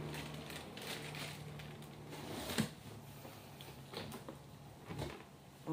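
Faint handling of cardboard and foam packing in a box: light rustling with a few soft taps, the clearest about two and a half seconds in, over a low steady hum.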